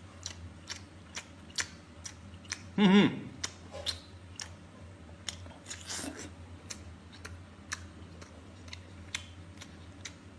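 A person biting and chewing a homemade Chinese cured sausage (lap cheong), with many wet mouth clicks and smacks. A brief loud vocal sound about three seconds in. A steady low hum underneath.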